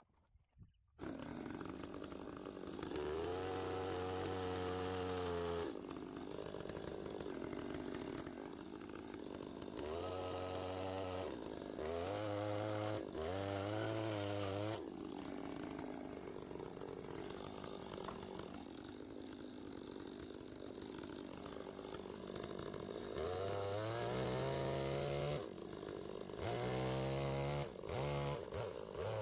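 Chainsaw cutting cedar for milling slabs: the engine rises to full throttle in several bursts of a few seconds each and drops back to a lower running speed between them.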